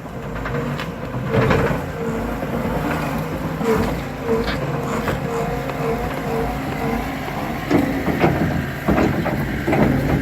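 Skid steer engine running steadily under work, with scattered clanks and knocks from the machine. A series of short evenly spaced beeps comes in the middle.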